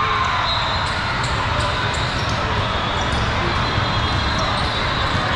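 Echoing din of a multi-court basketball hall: many basketballs bouncing at once, with scattered short knocks over a steady background of crowd chatter.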